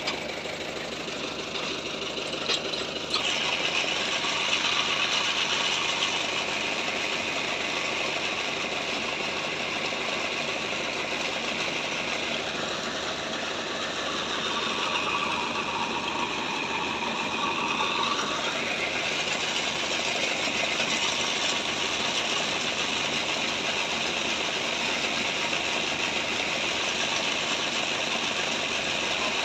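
Truck engine running steadily, with a dip and rise in its sound around the middle.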